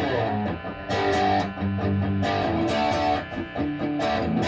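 Epiphone Casino hollow-body electric guitar played through an amplifier: chords strummed in a steady rhythm, each ringing on until the next stroke.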